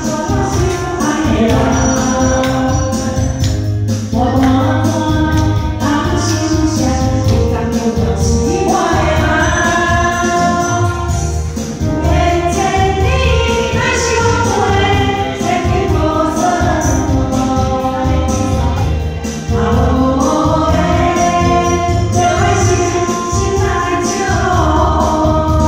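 A woman singing a pop song over a backing track with a steady beat.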